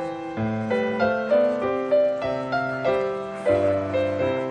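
Background piano music: a gentle melody of struck notes, each ringing and fading before the next.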